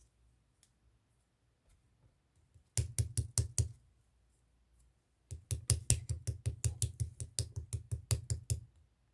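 Clear slime being squeezed and poked, giving sharp popping clicks: a short run of about five, then after a pause a longer run at about five a second.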